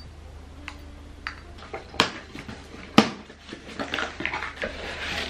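Hard clear plastic pieces knocking against each other in scattered clacks, the two sharpest about two and three seconds in. Near the end comes the rustle and scrape of a cardboard shipping box being opened.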